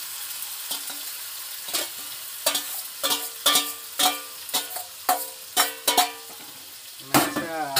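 Chicken and potatoes frying in masala in a metal pan, sizzling steadily, while a metal spatula stirs and knocks against the pan about nine times, each knock ringing briefly. Near the end comes a quick run of scraping strikes.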